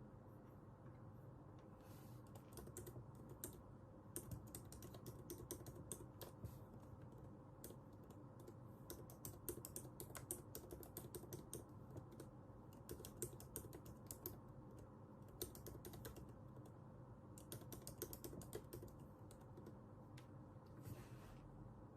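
Computer keyboard being typed on in quick bursts of keystrokes with short pauses between, faint over a steady low hum.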